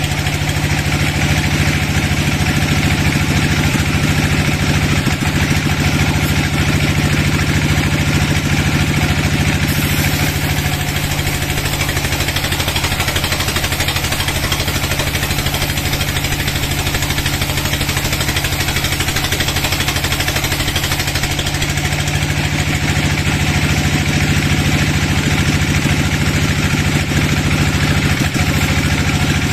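Large band sawmill running steadily as its blade rips lengthwise through a dry teak log: a loud, even machine drone with a steady low hum.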